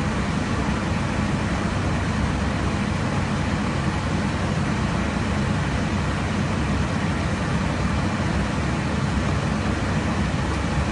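Steady rumble and rush of air inside a jet aircraft in cruise flight, even and unbroken, heaviest in the low end.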